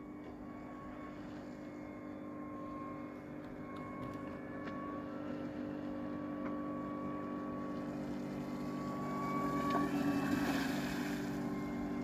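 Electric hydrofoil whistling: a Gen 1 Waydoo Flyer ONE stabilizer paired with an Axis Spitfire 620 front wing gives a thin high tone that comes and goes over a steady motor hum. It grows louder toward the end, with a rush of spray as the foil passes close. The owner believes the nylon-washer shim on the stabilizer's front bolt, which changes its angle, is partly responsible for the whistle.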